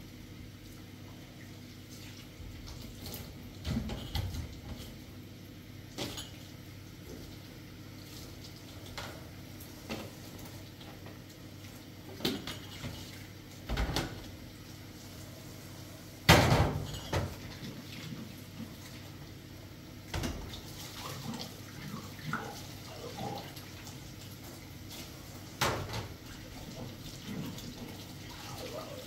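Intermittent knocks and clatter with water sounds, the loudest knock about sixteen seconds in.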